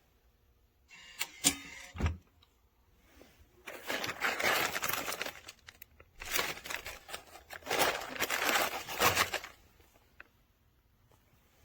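Handling noises: a few sharp clicks about a second in, then three long bursts of rustling and scraping.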